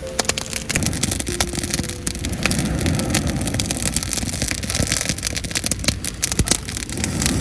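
Wood campfire crackling and popping over a steady low rumble.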